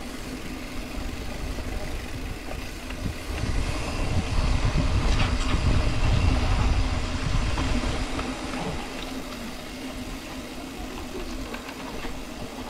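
A car being driven, heard from inside: steady engine hum and road rumble, growing to a louder low rumble for about five seconds in the middle before settling back.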